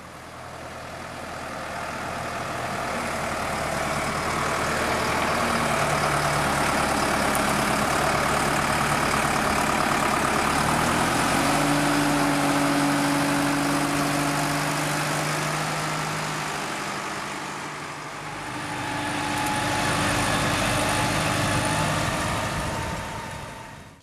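Sonalika 110 HP four-wheel-drive tractor's diesel engine running steadily under load while pulling a 32-disc harrow. The sound swells over the first few seconds, dips briefly about three quarters of the way through, rises again and cuts off at the end.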